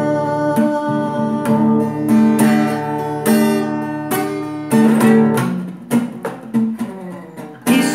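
Acoustic guitar strumming sustained chords, about one stroke a second, accompanying a sung chant between vocal lines.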